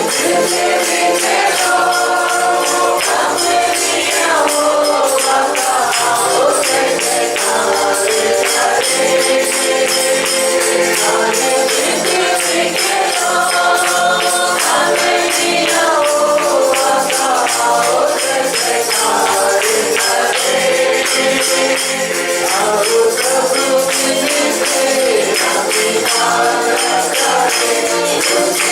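Worship song sung by a group, with a tambourine shaken in a steady rhythm over the instrumental backing.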